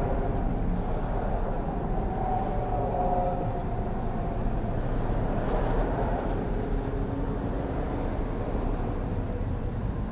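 Steady low background rumble, with a faint hum that comes and goes a couple of seconds in.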